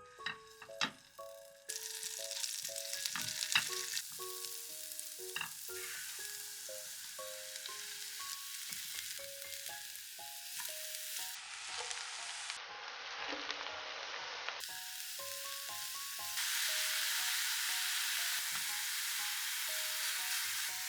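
Food sizzling in a hot frying pan, a steady hiss that starts about two seconds in after a few light clicks and grows louder near the end, under light background music.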